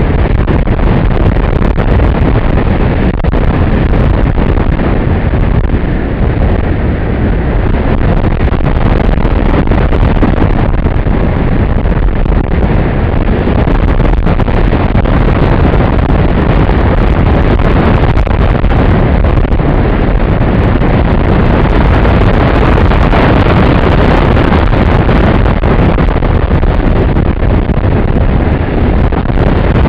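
Loud, steady wind rush on the microphone of a camera mounted on a radio-controlled model plane in flight, mixed with the drone of the plane's motor and propeller.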